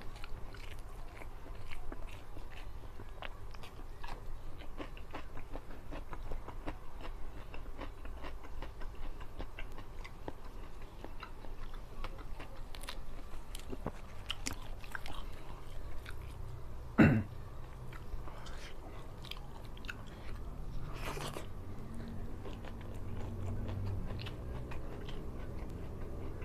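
Close-up eating sounds: chewing and biting with small crunches and mouth clicks as rice, fish and raw vegetables are eaten by hand. One short, loud sharp sound stands out about seventeen seconds in.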